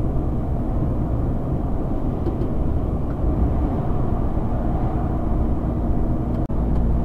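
Steady engine drone and road noise inside the cab of a Mercedes Actros semi-truck, 12.8-litre engine, while driving. The sound cuts out for a split second near the end.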